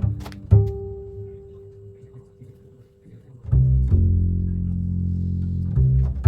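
Background music on low strings: a plucked note rings and fades, the music thins out, then sustained low bowed notes come in about halfway through.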